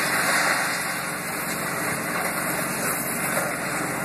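An engine running steadily under an even hiss.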